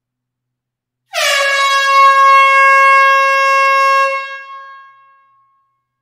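A single air horn blast in an enclosed hall, starting about a second in. It dips briefly in pitch at the start, holds one steady loud tone for about three seconds, then dies away in the hall's echo.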